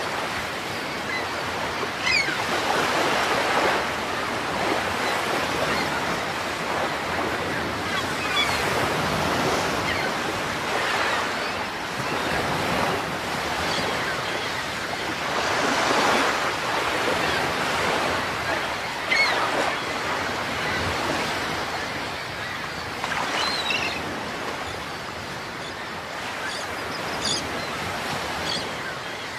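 Ocean waves washing and surging in slow swells, with a few short, faint high-pitched calls now and then.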